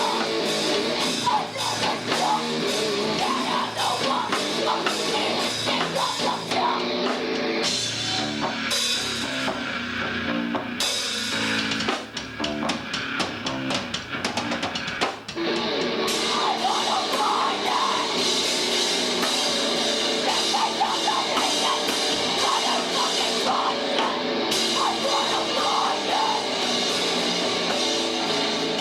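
Heavy rock band playing live: a drum kit with cymbals, and guitars. The sound thins out briefly about twelve to fifteen seconds in.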